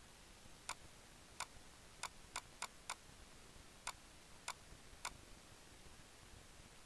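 Computer mouse button clicking nine times, with a quick run of four clicks in the middle.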